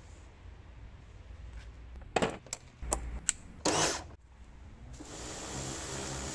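A few sharp knocks and clicks, with the loudest noisy burst about three and a half seconds in, then an electric pressure washer running: a steady hiss of the water jet over a low motor hum from about five seconds in.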